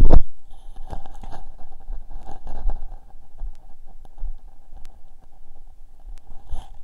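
Sound picked up through a stethoscope chestpiece on the body: a loud thump of the chestpiece being handled at the start, then faint, muffled body sounds with a faint steady whine.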